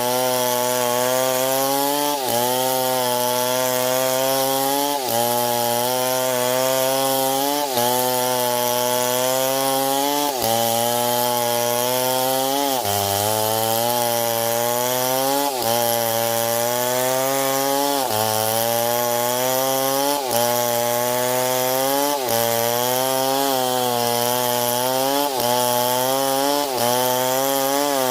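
Stihl MS 070 chainsaw, a large two-stroke saw, running hard while cutting wood. The engine note sags under load and climbs back again about every two to three seconds.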